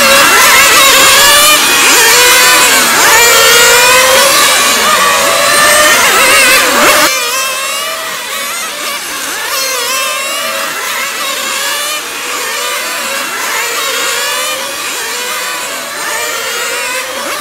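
Several 1/8-scale on-road nitro RC racing cars' small two-stroke glow engines running at high revs, overlapping, each one's pitch rising and falling as it brakes and accelerates through the corners. About seven seconds in the sound cuts suddenly to a quieter, thinner version with the low end gone.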